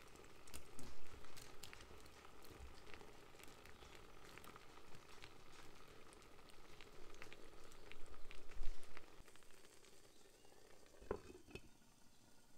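Egg and cherry tomato mixture sizzling in hot oil in a nonstick frying pan, a steady crackle with many sharp pops that thins out about ten seconds in. Near the end a glass lid is set on the pan with a short knock.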